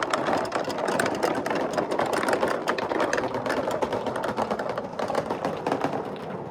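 Marbles rolling and clattering through a PVC-pipe marble run: a dense, rapid rattle of many small clicks, slowly getting quieter.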